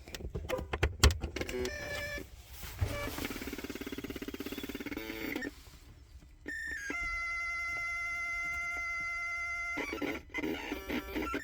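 Ground-loop interference from a Sandisk Sansa Fuse MP3 player's power activity, played through the trailer stereo's AUX input: a burst of clicks, then a fast buzzing pulse, then steady high electronic tones that change pitch pattern and cut off. It is the sign of a ground loop between the stereo's analogue AUX input and the trailer's USB charging port.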